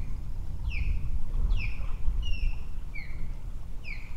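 A bird calling: a series of about six short notes, each sliding down in pitch, repeated a little more than once a second. Underneath is a steady low rumble of wind on the microphone.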